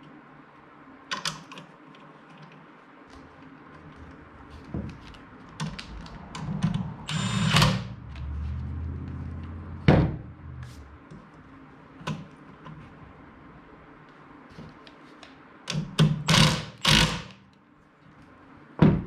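Hand work on a car seat's seat-belt anchor and its hardware: scattered clicks and sharp knocks, with a longer scraping rustle about seven seconds in, a loud knock about ten seconds in and a cluster of loud knocks near the end.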